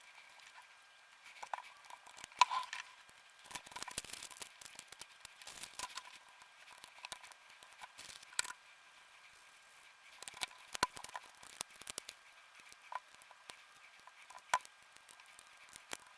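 Irregular small clicks, taps and scrapes of hands and tools working on plastic gamepad parts. The sharpest click comes about two and a half seconds in.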